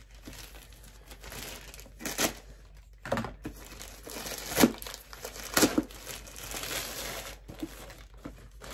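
Blue plastic mailer bag crinkling and rustling as a boxed parcel is pulled out of it, with several louder crackles around the middle.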